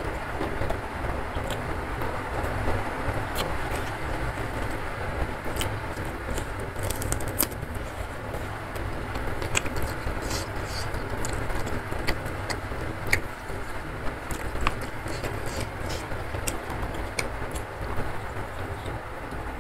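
Heavy rain falling steadily, with scattered wet clicks and smacks of close-up chewing and of fingers working rice.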